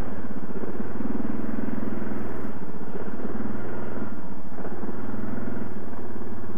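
Yamaha Grizzly 700 ATV's single-cylinder engine idling steadily, warming up just after a cold start.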